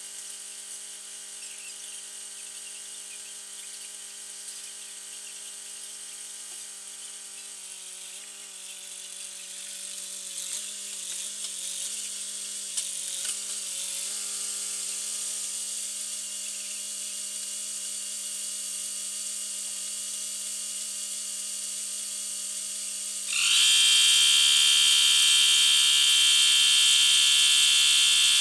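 Sped-up time-lapse audio: a steady high-pitched machine buzz, then about 23 seconds in a much louder motor starts abruptly and keeps running: the electric air compressor being switched on.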